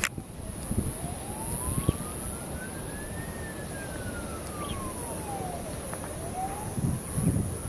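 Emergency vehicle siren wailing faintly, its pitch rising slowly, falling over several seconds, then starting to rise again near the end.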